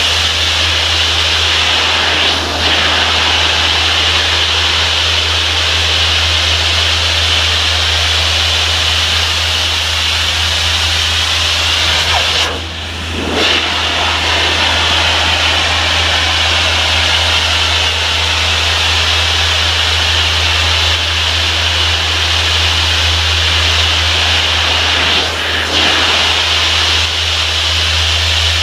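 Pressure washer spraying high-pressure water in a steady hiss, its engine humming low and steady underneath. The spray drops out briefly a few times, longest about 13 seconds in.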